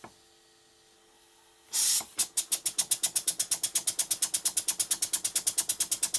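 Model slide-valve steam engine running on compressed air after a burst of air hiss, its exhaust puffing in a fast even beat of about ten puffs a second. The exhaust comes at the end of each stroke, a sign of faulty slide-valve geometry over the ports.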